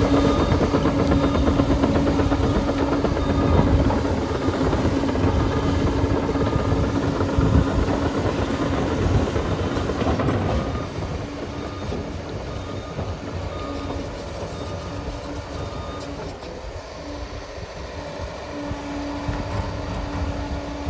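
Liebherr PR 746 crawler dozer working: its diesel engine runs with a steady drone, mixed with the clatter of the steel tracks. The noise drops off noticeably about halfway through.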